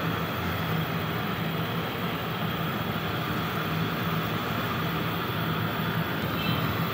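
Steady whirring hum with a low drone under an even rush of noise, unchanging throughout.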